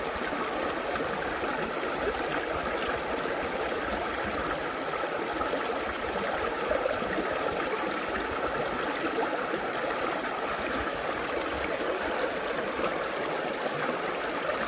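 Creek water flowing and trickling steadily over rocks, an even rushing with no breaks.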